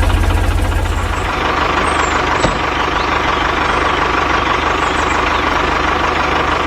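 Heavy vehicle engine running steadily, with a low rumble that eases after about a second and a steady high whine.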